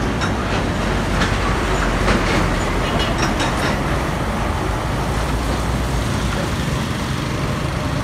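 Road traffic passing close: a heavy truck goes by with a low engine rumble and a rattling clatter, easing off near the end as cars and motorbikes follow.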